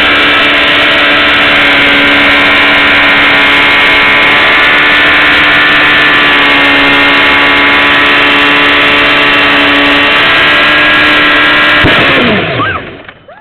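A 1995 Kawasaki sport bike's engine is held at high, steady revs during a burnout, with the rear tire spinning and smoking on the asphalt; the whole is very loud. About twelve seconds in there is a sudden crack, the rear tire bursting, and the revs fall away quickly.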